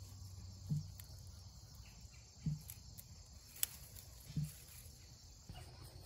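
Steady, faint high drone of insects singing in the garden. Three short low sounds come about two seconds apart, with a single sharp click between the second and third.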